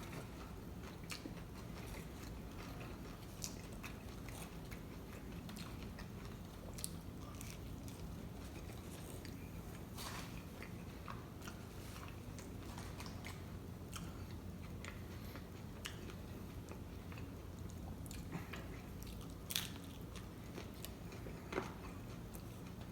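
Faint chewing and biting of tacos, with scattered small crunches and clicks over a steady low hum.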